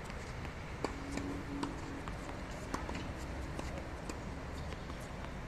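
Tennis balls being hit with rackets and bouncing on a hard court: sharp, scattered pops a second or so apart, the loudest about a second in, over a steady background hum.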